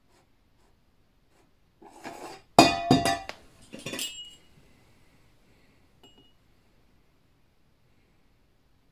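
Small round metal tin sliding off a tilted book cover and clattering down onto a wooden table: a brief scrape about two seconds in, then a quick run of knocks with a metallic ring, the loudest first, fading by about four and a half seconds.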